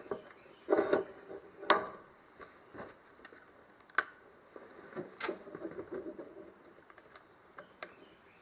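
Scattered sharp clicks and light knocks at irregular intervals, from hands working in a truck cab while a newly wired 12-volt power outlet is tested. The sharpest clicks come about a second and a half in and about four seconds in.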